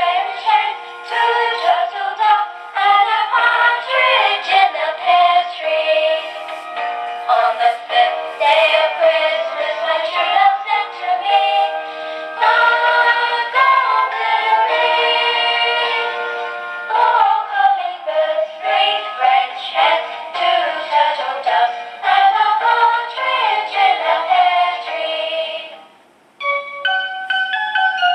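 Christmas song with synthesized singing, played by a motion-triggered Christmas sound-effect module through its small speaker, thin with no bass. Near the end it stops abruptly and a sparse tune of single ringing notes begins.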